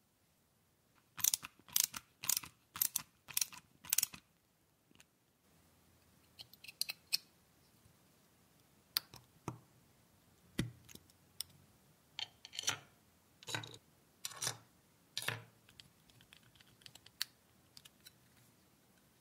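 Small metal Meccano parts being handled on a workbench. A quick run of about six sharp clicks and scrapes comes a second or so in, then scattered light ticks, and later four or five longer scraping strokes.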